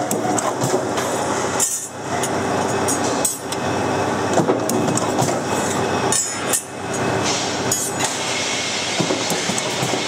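Metalworking machinery running with a loud steady din, with scattered metallic clinks and knocks, dropping away briefly a few times.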